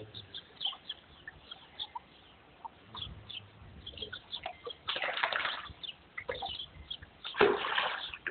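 Water splashing in a shallow pool where dachshunds are paddling, in two loud bursts: one about five seconds in and another near the end. Short high chirps come and go throughout.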